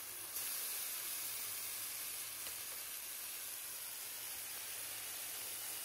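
Thin-cut Angus chuck steaks and onion rings sizzling steadily on a hot flat-top griddle (plancha), a steady frying hiss. The sizzle steps up in loudness about half a second in, just after a steak is turned with tongs.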